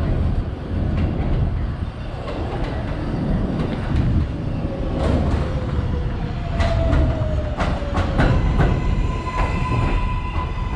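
R188 subway train running on the rails with a heavy rumble and sharp clicks over the rail joints. Midway a whine slowly falls in pitch, and from about two-thirds of the way in a steady high tone sounds.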